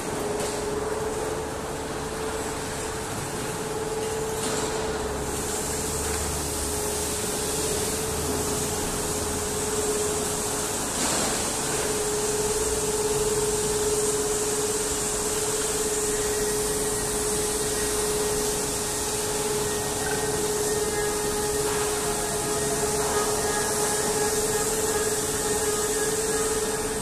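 Steady din of machinery in a steel rebar mill hall: a constant hum with a hiss above it, and faint higher whines joining in about halfway through.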